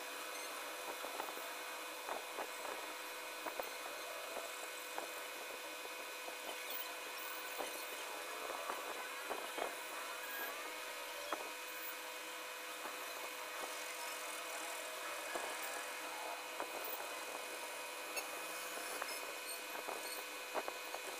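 Pencil scratching on paper in quick shading strokes, with irregular small ticks, over a steady hiss and a faint steady whine.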